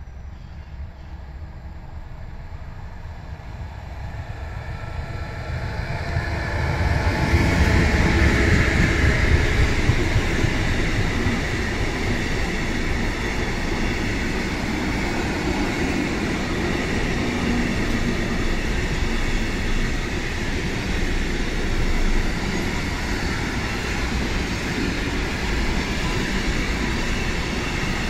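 Container freight train approaching and passing: the sound grows to its loudest about seven seconds in as the locomotive goes by, then holds as a steady noise of the loaded container wagons rolling past.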